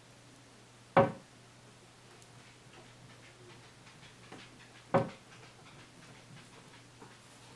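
Plywood cabinet door on concealed hinges being swung shut against the cabinet frame: two sharp wooden knocks about four seconds apart, the door-test of freshly hung hinges.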